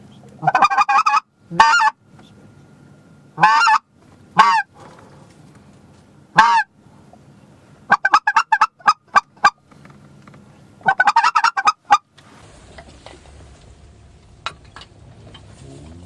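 Goose honking, very loud and close: single honks and fast runs of short clucking notes, which stop about twelve seconds in.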